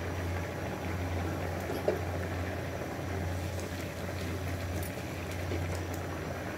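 Rice pulao bubbling as it boils in a frying pan over a gas burner, its water nearly cooked off. A spatula stirs through it, with a light knock about two seconds in.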